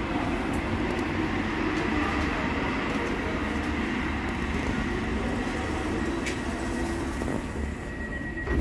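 Light-rail car standing at the platform with its doors open, giving off a steady low rumble and hum. Near the end a high beep sounds and the door shuts with a thump.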